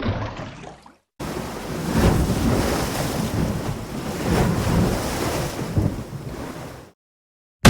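Water splash sound effects. One splash fades out in the first second, then after a short silence comes a longer rush of splashing, churning water that swells twice and dies away near the end.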